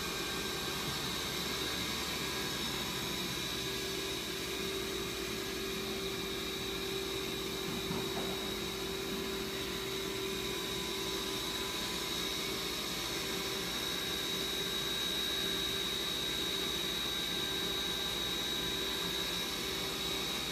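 Sharp SV-2414S-IF vertical machining center running its demo cycle, spindle turning at about 4,250 rpm: a steady whir with a constant high whine.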